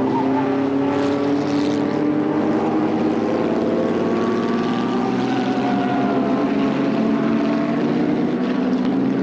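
Engines of historic sports racing cars running at speed on the circuit: a steady, overlapping engine drone whose notes drift slowly, several sliding down in pitch around the middle.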